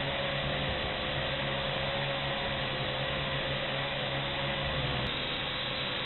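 WLToys V686G quadcopter's motors and propellers in flight, heard through its onboard camera: a steady whine that wavers slightly in pitch over a constant hiss.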